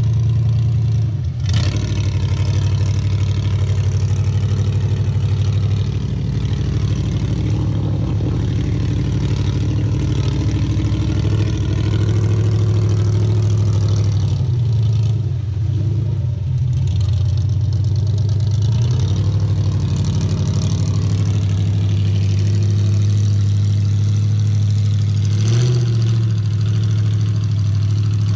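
LS-swapped 6.0 V8 with headers in a lifted Jeep Wrangler YJ, running at a steady part-throttle note while it wades through deep water. Its pitch rises briefly a couple of times in the second half.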